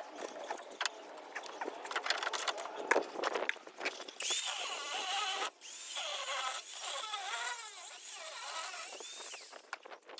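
Scattered handling clicks and rustling, then about four seconds in a disc cutter, an angle grinder with a cutting disc, starts cutting into thick copper transformer windings. It cuts in two spells with a short break between, its pitch wavering as the disc loads up in the copper.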